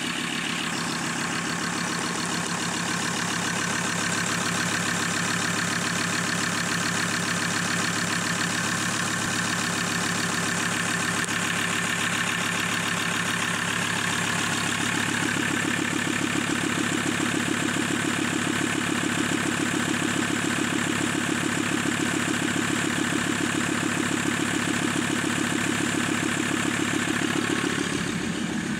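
2014 Mazda BT-50's 3.2-litre five-cylinder turbo diesel idling steadily.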